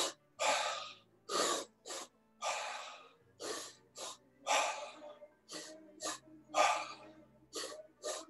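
A man breathing deeply and forcefully through the mouth in a steady rhythm, the last slow, deep breaths of a 40-breath breathwork round. About one cycle every two seconds, each a longer breath followed by two short ones.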